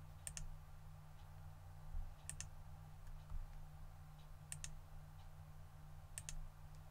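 Computer mouse button clicks: four short clicks about two seconds apart, each a quick double tick, over a low steady hum.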